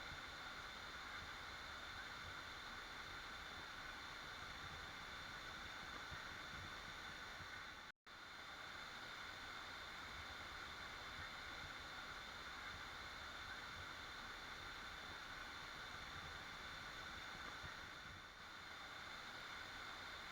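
Waterfall rushing with a steady, even hiss. The sound cuts out for a split second about eight seconds in and then carries on unchanged.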